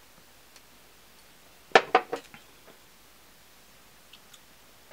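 A person drinking from a clear plastic cup: a quick cluster of three or four sharp clicks and taps about two seconds in, against faint room tone.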